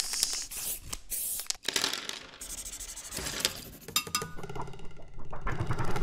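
Animated logo sound effects: a quick run of clicks, clinks and rushing whooshes, then ringing tones that come in about four seconds in and build to a bright ring at the end.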